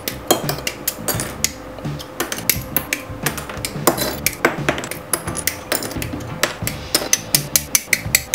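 Hobby side cutters (nippers) snipping plastic model-kit parts off their sprue runners, making many sharp plastic clicks in quick succession over background music with a steady beat.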